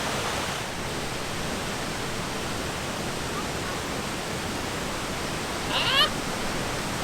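Steady rush of a stream or waterfall. About six seconds in there is one short, high call with falling pitch.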